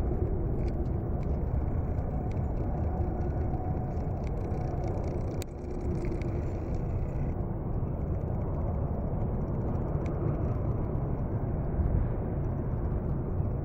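Jet airliner's engines during takeoff, heard from a distance as a steady low roar, with a click and a brief dip about five and a half seconds in.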